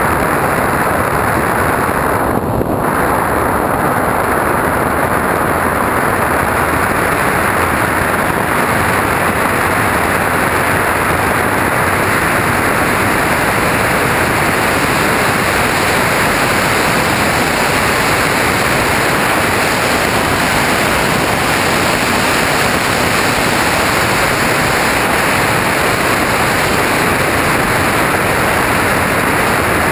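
Steady rush of air and motor noise heard by a camera riding on a radio-controlled aircraft in flight.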